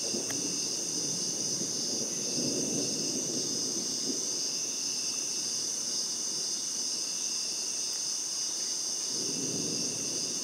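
Dense chorus of night insects, a steady high-pitched shrilling in several unbroken layers. Under it, a low rushing noise swells and fades, building again near the end.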